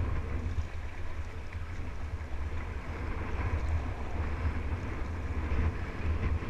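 Fast, choppy river water rushing past an inflatable kayak's bow, under a heavy low rumble of wind buffeting the kayak-mounted action camera's microphone.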